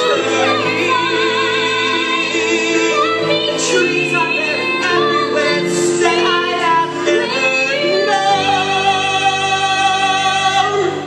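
A male singer sings a musical-theatre ballad in a high voice with vibrato over instrumental accompaniment. He holds a long final note, and the music cuts off right at the end.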